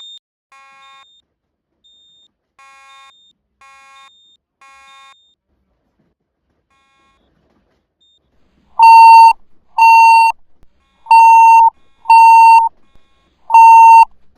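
Fire alarm evacuation signal sounding between voice messages. A few faint beeps come first, then from about nine seconds in a loud, steady-pitched beeping tone pulses roughly once a second.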